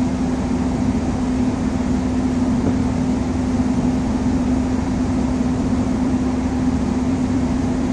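Steady mechanical drone: one constant low hum over an even rumble, unchanging throughout.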